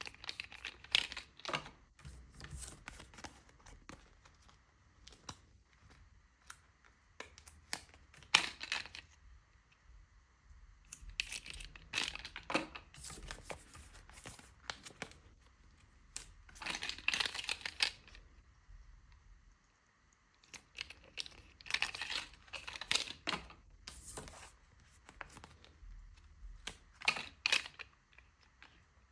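Plastic toy packaging crinkling and tearing as it is handled and opened by hand, in bursts every few seconds with quieter rustling between.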